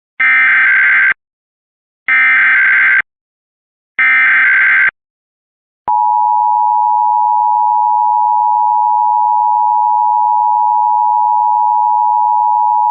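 Emergency Alert System test signal: three one-second bursts of SAME header data tones about two seconds apart, then, about six seconds in, the steady two-tone EAS attention signal begins and holds.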